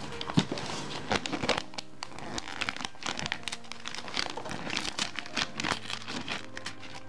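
Thin white package wrapping crinkling and rustling as hands unfold and crumple it, in an irregular run of quick crackles.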